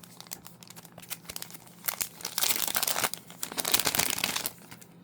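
Card packaging crinkling and rustling as the next lot of trading cards is handled and opened: light rustles at first, then two louder crinkling stretches about two seconds in and again just after three seconds.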